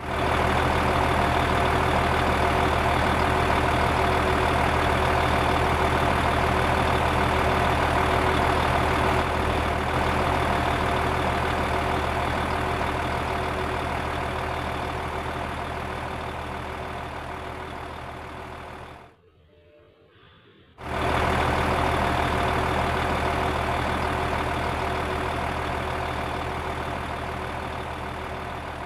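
Truck engine idling, a steady low running sound that fades out slowly, drops to near silence for about two seconds, then starts up again and fades once more.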